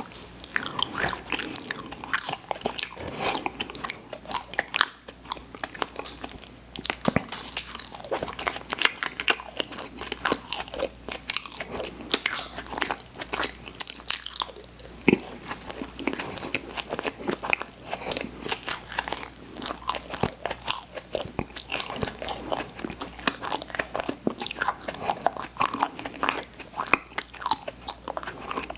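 Close-miked chewing and biting of candy, with a steady stream of crunchy, wet clicks.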